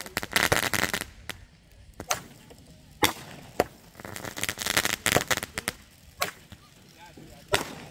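Fireworks shooting up and bursting: scattered sharp bangs, with dense rapid crackling about half a second in and again around four and a half seconds.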